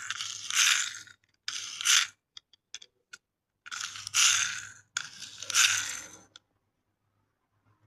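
Small electric motors and plastic gearboxes of toy remote-control cars whirring in short bursts of about a second or two each, stopping about six seconds in.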